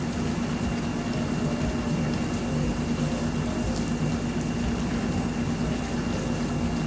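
Tomato sauce simmering in a stainless steel sauté pan on a gas burner, over a steady low hum. A few faint clinks of metal tongs against the pan as the beef rolls are turned in the sauce.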